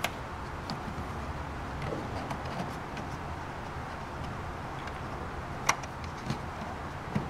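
A few light clicks and rubs as a hand pulls the rubber weatherstrip away from the Honda S2000's plastic cowl panel, over a steady background hiss. The sharpest click comes near the end.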